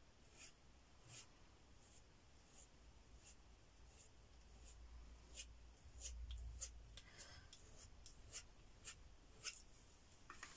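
Faint scraping of a metal palette knife pushing thick acrylic paint across paper, heard as a string of short scratches that come more often in the second half.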